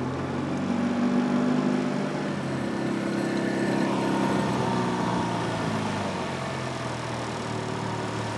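Small outboard motor running steadily, pushing an aluminium jon boat along.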